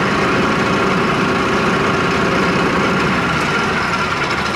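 Mahindra 8560 tractor's diesel engine running steadily at raised revs with a steady whine, the loader hydraulics held against the relief valve for a pressure reading. The sound eases off near the end.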